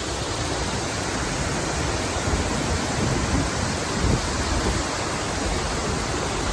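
Wahkeena Falls rushing: a steady, even rush of falling water.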